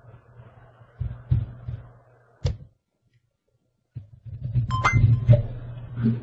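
Several knocks and clicks over a low hum. The sound cuts out completely for over a second in the middle. A busier run of knocks follows, with a short ding-like tone near the end.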